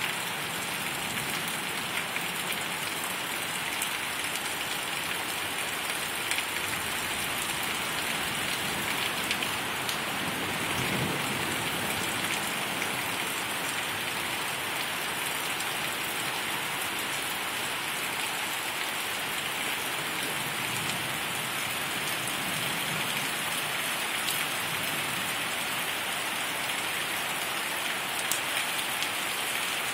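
Heavy rain pouring steadily onto a street, lawn and trees, an even, unbroken hiss.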